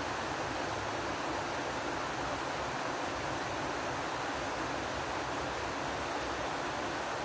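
Steady, even rushing hiss that holds at one level, with no clicks or changes.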